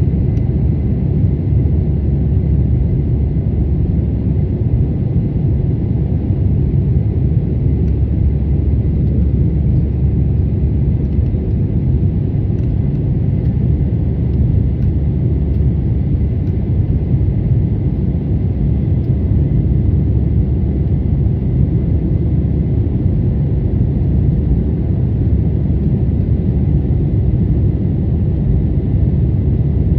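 Cabin noise inside an Airbus A320-214 in the climb: its CFM56 turbofan engines and the airflow make a loud, steady low rumble, with a faint steady high tone over it.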